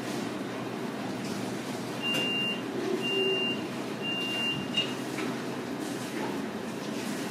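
An electronic beeper sounds three times, each a high single-tone beep about half a second long, spaced about a second apart, followed by a short click, over steady background noise.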